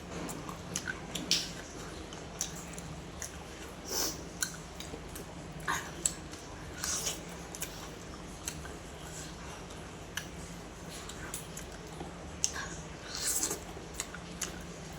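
Close-up eating sounds: irregular wet chewing clicks and a few short slurps or sucks, over a steady low hum.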